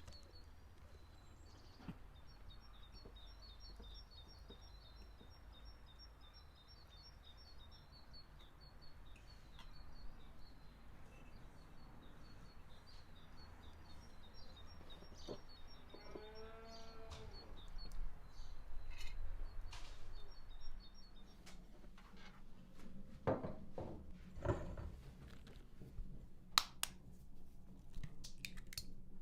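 Small birds chirping repeatedly over low outdoor background noise, with a short pitched animal call about halfway through. Near the end come a series of sharp knocks and clicks.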